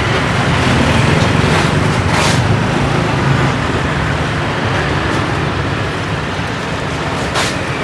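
Steady road traffic running past, a continuous rumble of engines and tyres, with two short sharp knocks, one about two seconds in and one near the end.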